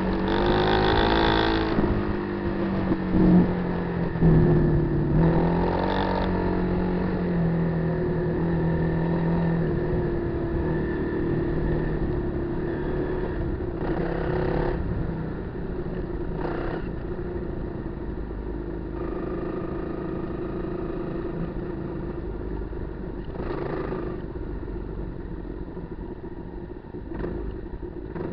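Kawasaki KLR250 motorcycle's single-cylinder four-stroke engine running under way off road, revving up and down in the first few seconds and then holding a fairly steady pitch. A few brief louder noises cut across it later on.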